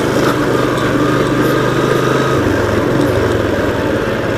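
Vehicle engine running steadily during the drive, with road rumble. The engine note drops slightly about two and a half seconds in.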